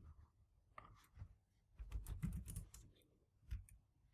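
Faint typing on a computer keyboard: scattered keystrokes, with a quicker run of taps about two seconds in.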